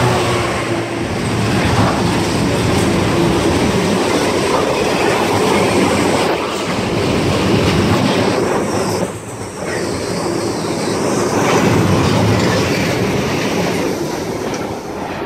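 Diesel-hauled freight train of steel coil wagons passing close by. A steady, loud, heavy rumble of wagon wheels on the track, with the locomotive's engine drone at the start, easing a little as the last wagon goes by near the end.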